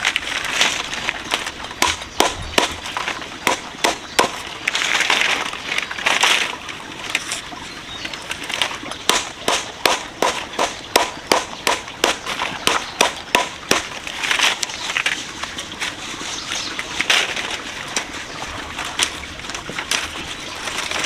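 A series of sharp knocks, coming about two to three a second through the middle stretch, with swishing noises in between.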